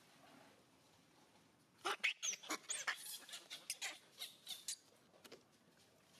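A quick run of short, high-pitched animal squeaks and chirps, some sliding up or down in pitch, starting about two seconds in and lasting nearly three seconds.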